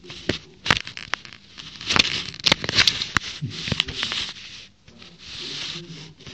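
A cat pawing at and bumping a smartphone held right up to it: an irregular run of scraping, crackling and knocking noises on the phone's microphone, with a softer rustling hiss near the end.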